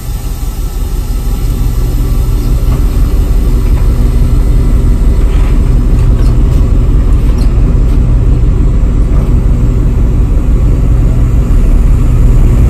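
Tugboat's diesel engine running steadily, a loud low drone heard from inside the wheelhouse, growing a little louder over the first few seconds and then holding even.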